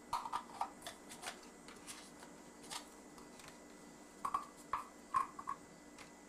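Light clinks and clatter of small dishes and utensils being handled, in two short flurries: one at the start and one about four to five seconds in.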